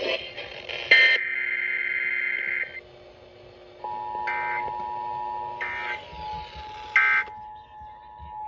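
Emergency Alert System tones from FM radios: a screeching digital SAME data burst about a second in, then the two-tone EAS attention signal, a steady 853/960 Hz pair, starting about four seconds in and holding. Three short data bursts sound over it about a second and a half apart.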